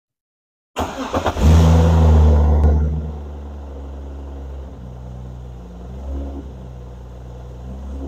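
BMW E46 race car's inline-six started from the dash switch panel: a brief crank, then it catches, flares up loud for about a second and settles to a steady idle.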